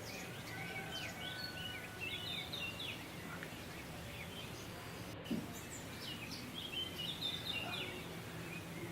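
Faint birds chirping in two spells of quick high chirps over steady low background noise.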